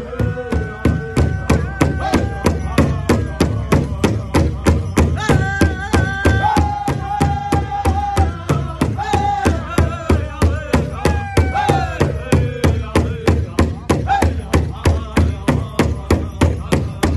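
Powwow drum group singing around a large shared bass drum: an even drumbeat of about three strikes a second under a chorus of high voices singing phrases that start high and step down in pitch, with the song rising back to a high start about five seconds in and again near eleven seconds.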